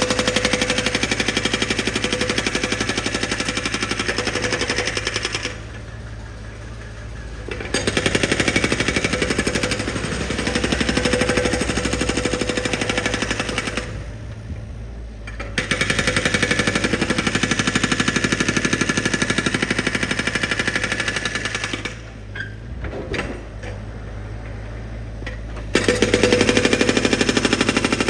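Construction vehicle's drill hammering in rapid, even strokes, in four bursts of several seconds each. In the three pauses between bursts, the machine's engine keeps running with a steady low hum.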